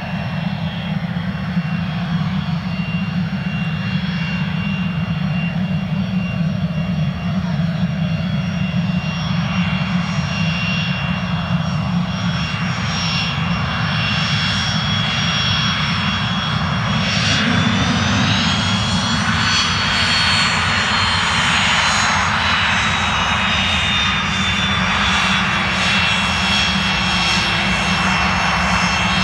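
Twin Williams International FJ44-4A turbofans of a Pilatus PC-24 business jet running on the runway: a steady high whine over a low rumble, which rises in pitch and grows louder about two-thirds of the way through as the engines spool up for takeoff, then slowly falls in pitch.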